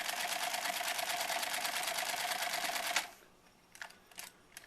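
Singer 306W sewing machine running fast, its needle bar making a rapid, even ticking over the steady whine of its 1/2 amp motor, then stopping abruptly about three seconds in. A few light clicks follow.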